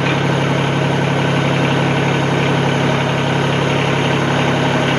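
Mahindra compact tractor's diesel engine running steadily, powering the backhoe.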